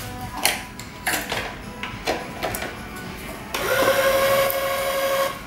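String being drawn through the racket frame in several quick swishes, then a Wise 2086 electronic tension head's motor running steadily for about two seconds near the end, pulling a cross string up to tension. Background music plays underneath.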